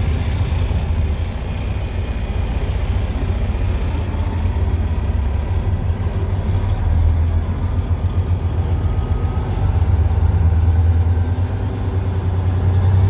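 Freightliner Coronado semi truck's diesel engine running at low revs, heard inside the cab as a steady deep rumble while the truck rolls along slowly; the engine note swells a little a few times.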